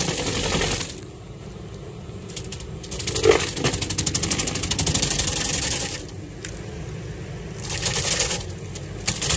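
Vermeer FT300 stump grinder's toothed cutting wheel grinding into a tree stump, a rapid rattle of teeth biting wood over the running engine. It comes in loud surges near the start, in the middle and near the end as the wheel sweeps across the stump, with a sharp crack about three seconds in.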